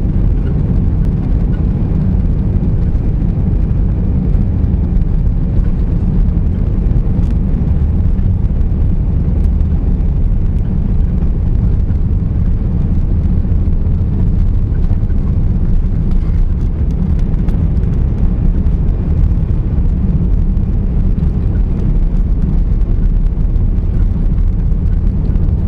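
Airbus A340 jet engines running, a steady loud low rumble that holds even throughout.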